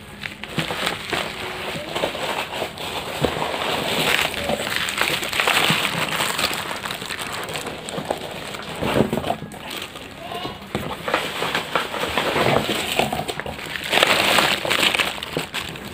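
Plastic packaging rustling and crinkling as a parcel is opened and its contents handled, a continuous crackle with louder bursts of crinkling.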